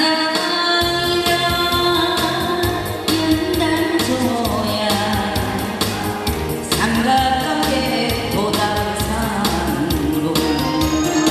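A woman singing a Korean trot song live into a microphone, holding long notes with vibrato, over an amplified backing track with a steady drum beat.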